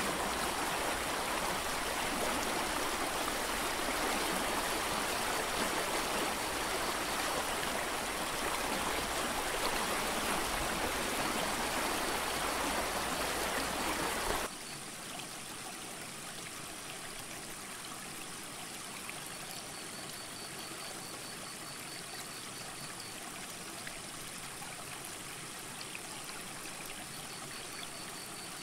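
Mountain creek water rushing as a steady, even wash of noise, which drops suddenly to a quieter hiss about halfway through.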